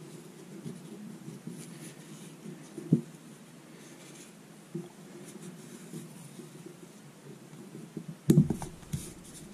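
Hands wrapping abrasive wet-and-dry paper and masking tape around a steel crankshaft journal: light rustling and handling over a steady low hum, with a sharp knock about 3 seconds in and a quick run of loud knocks and clicks near the end.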